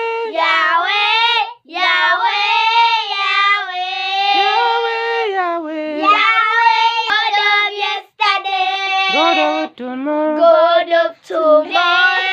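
Two girls singing without accompaniment in high voices, long held notes in phrases broken by short breaths.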